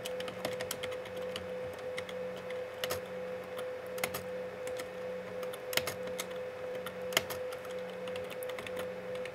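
Typing on a computer keyboard: irregular key clicks, a couple of them louder, over a steady low hum.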